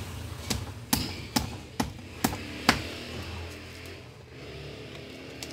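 A screwdriver wedged in the brass pump head of a plunger-type pressure-washer pump is struck six times, about twice a second, in sharp knocks. The blows drive an old, worn seal out of its bore. Only faint ticks follow.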